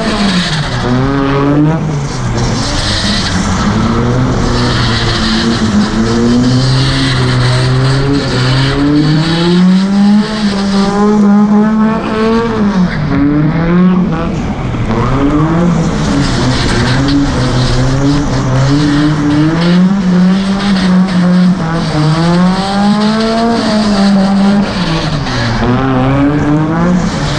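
Volvo drift car's engine revving up and falling back over and over through a tandem drift, with a steady hiss of tyres sliding on the wet track.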